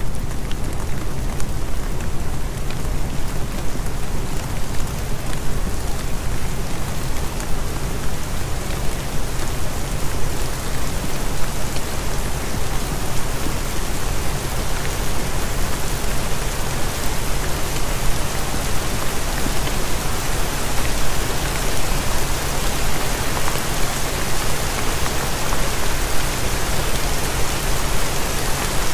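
Steady rain-like hiss with low steady tones underneath: the masking bed of a subliminal affirmation track. The higher part of the hiss fades up over the first several seconds.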